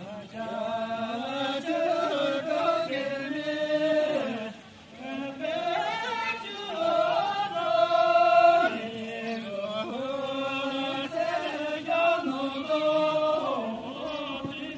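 Voices singing together in a slow Tibetan circle-dance song, drawn-out phrases with long held notes and a short pause about four and a half seconds in.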